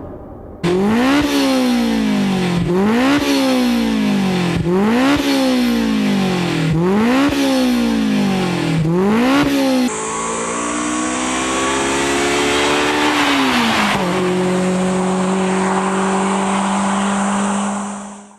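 Honda S2000 four-cylinder engine through an aftermarket performance exhaust, revved five times about two seconds apart, each rev rising sharply in pitch and falling back more slowly. After a cut about ten seconds in, the engine pulls with a slowly rising pitch, then drops and holds a steady lower note.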